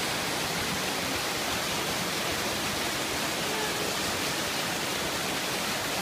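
Waterfall and cascade pouring over rocks into a pool: a steady, even rush of falling water.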